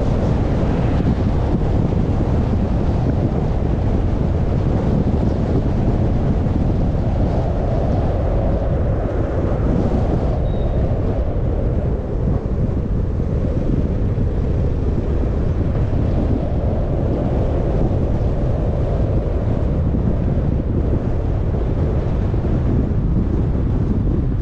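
Steady wind noise on the microphone over the low rumble of a car driving along the road.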